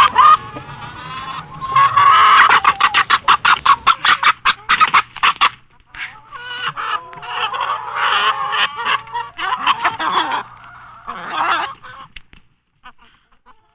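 Chickens clucking and cackling in fast runs of short calls with brief pauses between them. The calls die away about twelve seconds in.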